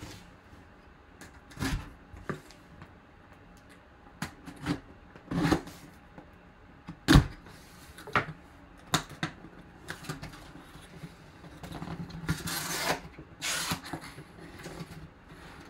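Handling of a taped cardboard box: a knife slitting the packing tape, with scattered knocks and taps as the box is turned and set down, the sharpest about seven seconds in. Near the end a longer scraping rustle as the cardboard flaps are pulled open.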